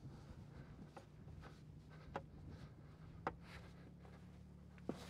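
Near silence: a faint low hum with a few soft clicks.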